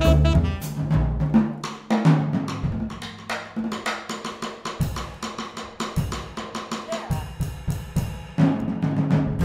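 Jazz drum kit playing a busy solo passage of snare and bass drum hits with rimshots. The rest of the quartet, low bass notes included, sounds briefly at the start and comes back in near the end.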